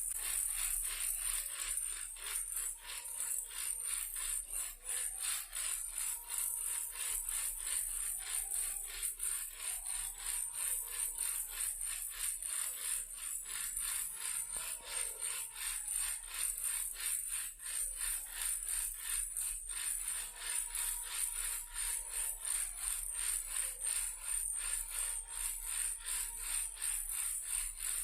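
Toy car rattle shaken continuously, giving a rapid, even stream of rattling clicks.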